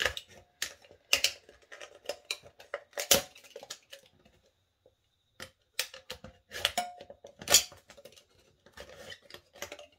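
Craft knife cutting around the top of a thin aluminium drink can: irregular sharp clicks, crackles and short scrapes as the blade pierces and slices the metal, pausing for a second or so about halfway through.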